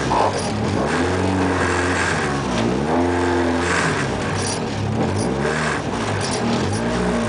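Renault Clio competition car's engine, heard from inside the cabin, revved up and down repeatedly in short rises and falls while the car moves slowly.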